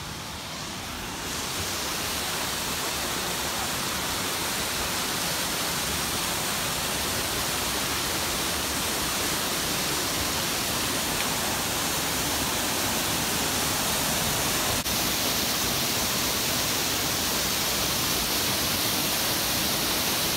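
Grotto Falls, a mountain waterfall, pouring in a steady rush of falling water that steps up about a second in and then grows slowly louder.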